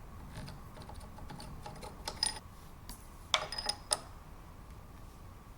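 Small metal parts handled at a milling machine: scattered light clicks, then two clusters of sharp, ringing metallic clinks, about two seconds in and again about three and a half seconds in.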